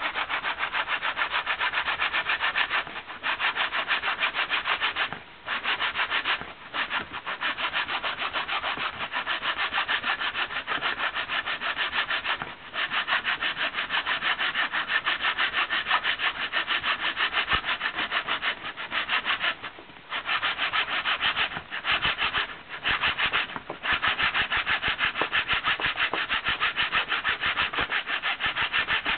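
Whale baleen being abraded by hand with quick, even back-and-forth strokes, a dry rasping scrape that stops briefly several times.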